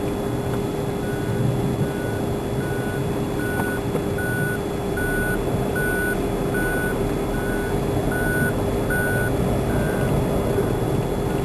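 A vehicle's reversing alarm beeping steadily, a little under two beeps a second, starting about a second in and stopping near the end, over the steady running noise of a vehicle.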